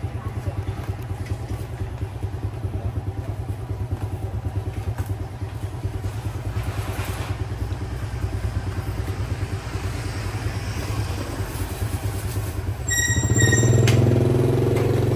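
Step-through motorbike engine idling close by with an even, pulsing beat; about 13 seconds in it gets louder and fuller as the motorbike pulls away.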